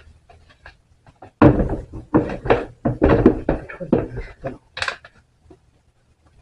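White plastic parts of an Omega Paw Elite self-cleaning litter box, its slotted sifting grate and tray, knocking and rattling against the tub as they are lifted and fitted together, in a run of clatter from about one and a half to five seconds in.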